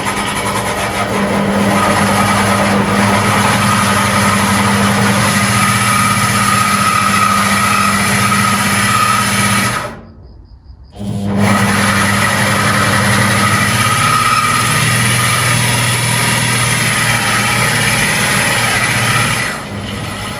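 Corded 220 V electric drill running steadily under load, stopping for about a second halfway through, then running again until just before the end.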